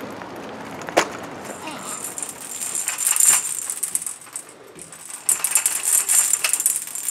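Baby's hanging crib rattle toy jingling and rattling as it is shaken, in two spells, after a single sharp click about a second in.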